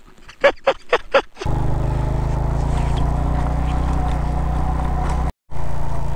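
A few short vocal bursts, then a motorcycle engine running at a steady speed while riding. The drone cuts out for a split second about five seconds in and comes straight back.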